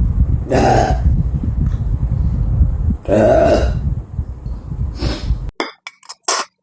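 A person burping loudly: a long burp about half a second in, a longer one about three seconds in and a short one near the end, over a steady low rumble. Then the rumble cuts out abruptly and a few short, sharp sounds follow.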